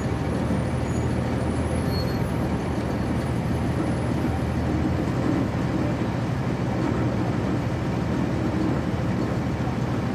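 On-board sound of a 1999 NovaBus RTS transit bus's Cummins ISC inline-six diesel engine running steadily, heard from inside the passenger cabin.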